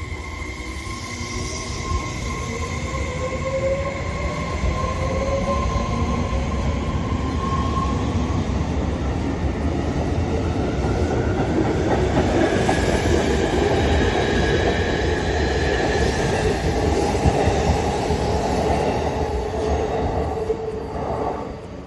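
Electric train running past on rails: a rumble of wheels that builds to its loudest in the second half, with a thin motor whine rising in pitch over the first several seconds. The sound drops away abruptly near the end.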